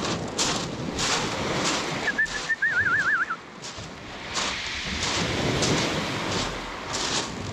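Footsteps crunching on beach pebbles at a steady walking pace, over wind rumble on the microphone. A short warbling whistle sounds about two seconds in.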